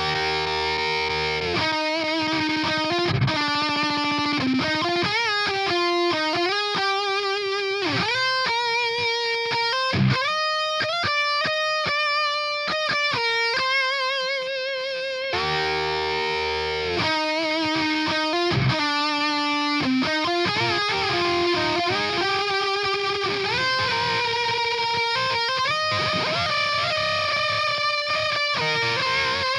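Electric guitar played through the Audio Assault Bulldozer amp-simulator plugin on a distorted lead tone: a single-note melody with string bends and wide vibrato on held notes. The phrase starts over about halfway through.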